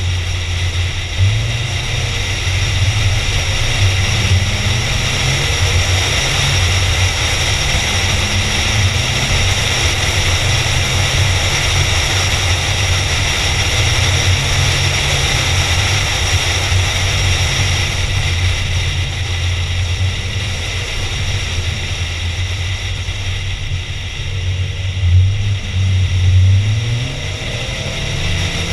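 Car engine and tyre noise heard from inside a moving car, a steady low drone with the engine revving up near the end.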